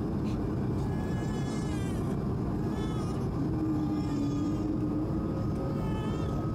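Cabin noise inside an Airbus A220: the steady rumble of its Pratt & Whitney PW1500G geared turbofans and airflow, with faint passenger voices in the background. A thin steady whine comes in about halfway.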